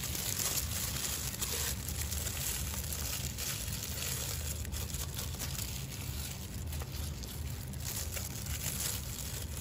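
Plastic food-prep glove crinkling as a gloved hand squeezes lime halves over a clay mortar for the salad dressing, with a few faint ticks over a steady low hum.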